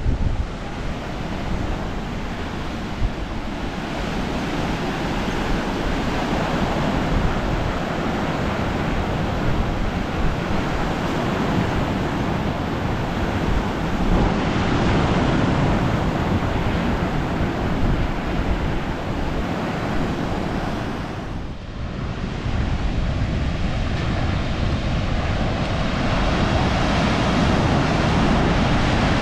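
Ocean surf washing in steadily, with wind rumbling on the microphone; there is a brief lull about three-quarters of the way through.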